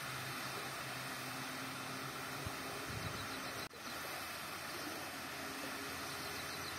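Steady rushing of water spilling over the overflow face of a masonry dam, with a faint low hum underneath. The sound drops out for an instant a little past halfway.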